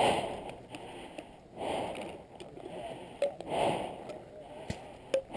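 Heavy breathing close to the microphone, a breath roughly every two seconds, with two short sharp pops about three and five seconds in.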